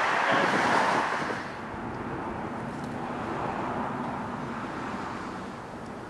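A road vehicle passing close by, loudest in the first second and a half, then steady outdoor traffic noise.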